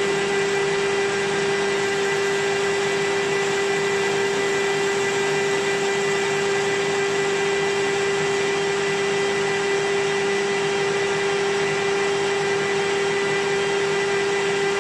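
Metal-turning lathe running at a steady speed, giving a constant mechanical hum with a steady whine.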